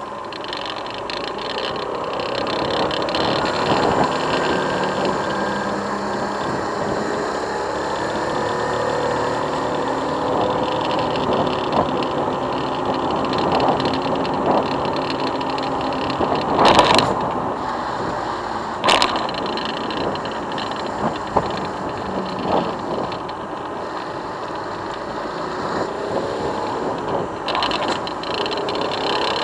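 Motorcycle engine running while riding, heard from on board, its pitch sliding up and down with speed. Two sharp knocks about two seconds apart, a little past the middle, are the loudest sounds.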